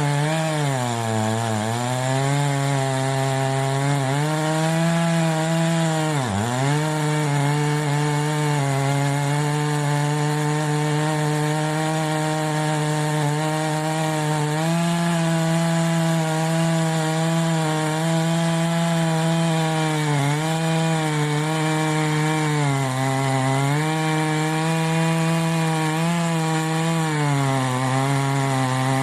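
Ported Stihl MS880 two-stroke chainsaw with a custom dual-port muffler, running flat out in a cut through wood. Its pitch sags briefly several times under load, most deeply about six seconds in, then climbs back.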